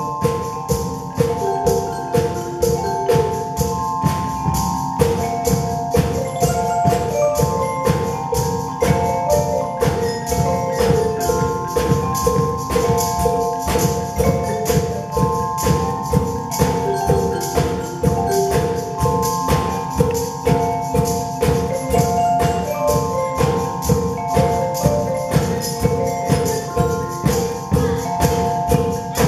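Youth percussion ensemble playing a rock tune on wooden marimbas, the bars struck with mallets in a repeating riff, over a drum kit keeping a fast, steady beat.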